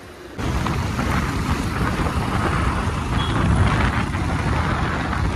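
Wind rumble on the microphone with road and traffic noise from a moving scooter. It starts abruptly about half a second in.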